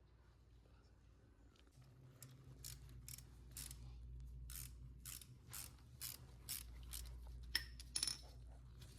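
Socket ratchet clicking in a run of quick strokes as a 12mm socket turns out the bolt holding the front brake line, followed near the end by two sharp metallic clinks.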